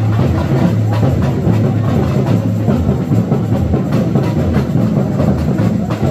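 Loud samba carnival music: dense percussion with many quick drum strokes over a heavy, steady bass.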